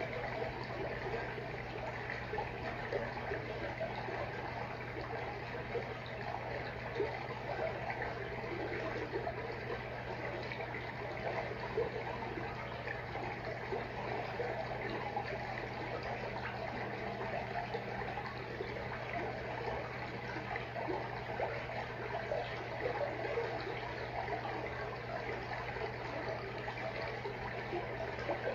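Freshwater aquarium water trickling steadily, over a constant low hum.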